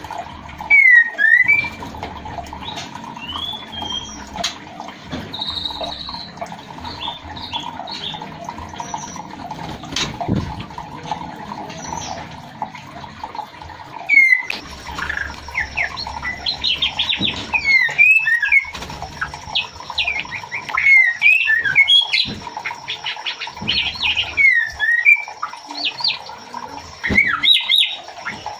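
Female white-rumped shama calling to the male: repeated short curved whistles and sharp chirps, scattered at first and coming thick and fast from about halfway on. A steady hum runs beneath, and a thin steady high whine joins about halfway.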